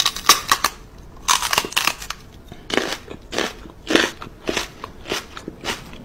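Crunching, chomping noises in short bursts, about one or two a second, as a puppy's paw is playfully nibbled.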